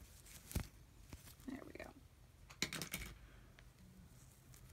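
Faint handling of a knitted doll sweater and its small plastic hanger: a few light clicks and rustles, with the loudest run of clicks about two and a half to three seconds in.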